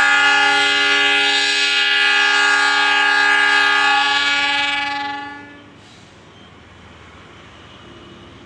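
Diesel locomotive horn sounding one long steady blast for about five seconds, then fading out: the signal for the Gajayana train to depart.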